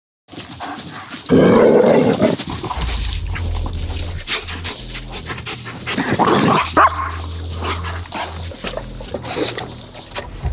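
Dogs barking as a Belgian Malinois and a German Shepherd meet off-leash. The loudest outbursts come about a second in and again around six seconds in, over a low rumble on the microphone.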